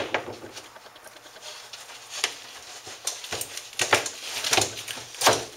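Plywood stretching board being settled into a wooden beaver table: a few short knocks and scuffs of board on wood and hands rubbing across the plywood, mostly in the second half.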